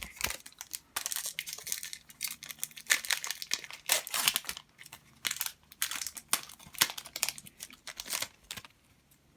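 Foil wrapper of a Pokémon trading-card booster pack being torn open and crinkled by hand, with irregular crackles that die away near the end.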